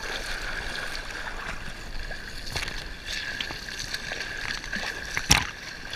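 River water sloshing and splashing around a camera riding at the water's surface, with a swimmer's arm strokes. A sharper, louder splash about five seconds in.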